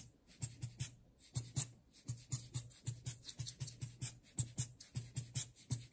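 Rocket-style rubber bulb air blower squeezed again and again, giving a quick, even series of short puffs of air, about three or four a second.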